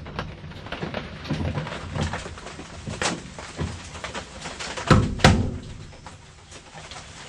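Hammer striking a screwdriver held against a truck door's hinge pin to drive the pin out: a few irregular metal knocks, the loudest about three seconds in and a close pair about five seconds in, with softer taps and scraping between. The pin is stuck fast and is not moving.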